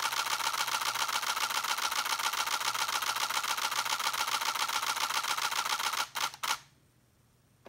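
Nikon D850 DSLR shutter and mirror firing a continuous burst at about nine frames a second. The burst stops about six seconds in, and a brief burst of two or three more shots follows.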